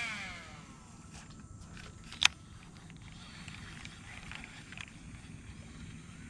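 Baitcasting reel spool whirring down at the end of a cast, falling in pitch and fading out within the first half-second. A single sharp click follows a little over two seconds in, as the reel is engaged. After that there is only a faint outdoor background with a few small ticks.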